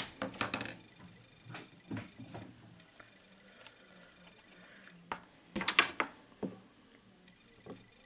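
Small metal fly-tying tools clinking and clattering on a work surface in short bursts, loudest at the very start and again about five and a half seconds in, with a few lighter clicks between.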